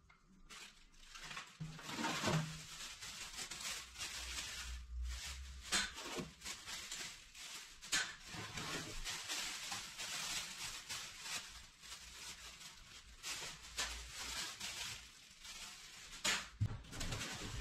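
Plastic wrapping and cardboard packaging being handled: continuous crinkling and rustling, broken by short sharp crackles and a few dull low thumps.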